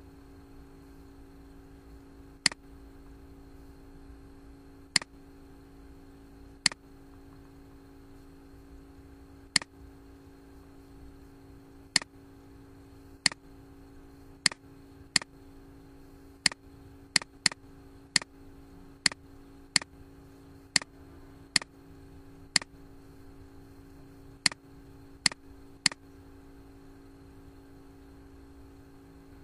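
Computer mouse clicking: about twenty sharp single clicks at irregular intervals, coming faster in the middle stretch, over a steady low electrical hum.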